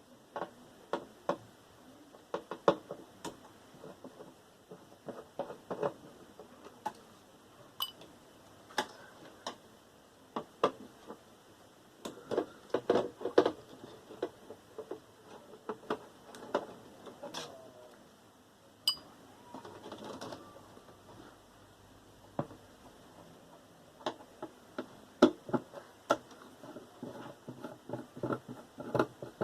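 Irregular clicks, taps and knocks of hand tools against the metal and plastic parts of a Sony VAIO desktop tower as it is taken apart and its screws removed, one knock leaving a brief metallic ring about halfway through.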